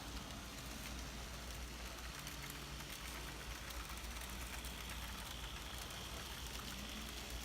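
Several N scale model trams running slowly on Unitram track: a faint steady whir of their small motors with light wheel ticking over the rails, and a thin high whine rising out of it about halfway through.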